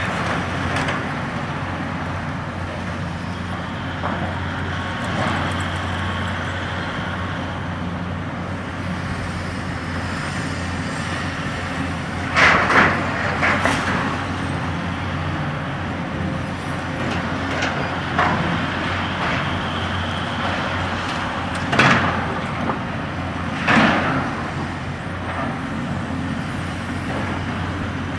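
Caterpillar tracked excavator's diesel engine running steadily while its demolition grab tears at the stand's steel frame and brick rubble. Debris and metal crash and clank several times, loudest about twelve seconds in, with more crashes later on.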